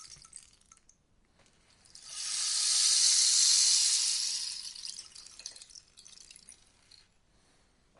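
Rainstick being tipped: the tail of one rain-like cascade fades out in the first second, then a new rushing cascade swells from about two seconds in, peaks, and thins into scattered patters before dying away near the end.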